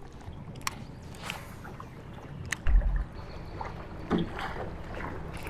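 Small fishing boat on choppy water: wind and light water slapping around the hull while a lure is cast and reeled. There are a few sharp light clicks and one brief low thump about two and a half seconds in.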